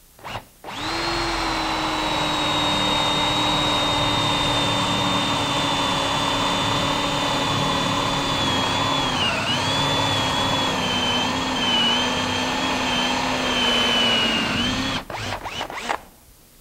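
Power drill boring a 1 3/8-inch hole in wood with a Forstner bit. The motor whines steadily, dips in pitch and wavers as the bit loads in the cut, then stops about fifteen seconds in, followed by a few clicks.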